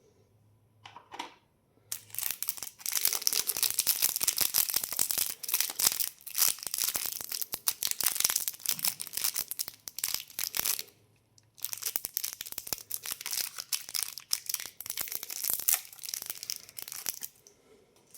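Candy packaging being torn open and crinkled by hand, a dense crackling rustle in two long stretches with a short break just before the middle.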